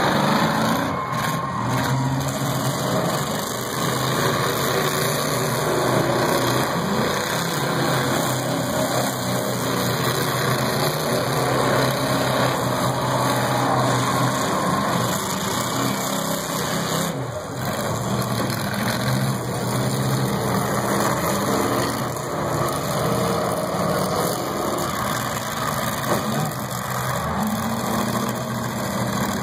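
Several demolition derby cars' engines running and revving together as the cars circle and push against each other on the dirt.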